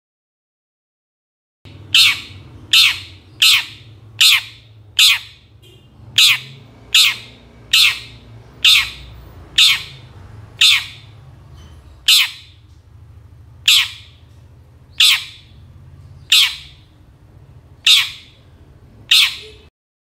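Long-tailed shrike (cendet) giving a series of about sixteen short, harsh squawking calls, starting about two seconds in. They come quickly at first, then more slowly, about one every second and a half.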